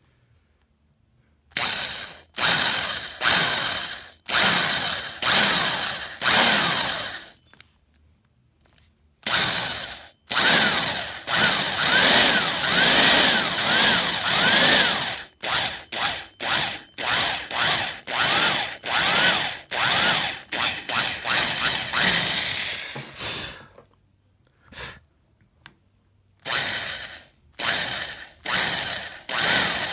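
Old electric drill boring screw holes into a wooden rifle stock's forend, run in short trigger bursts with brief pauses, then one longer run of about six seconds with its speed rising and falling, then more quick bursts.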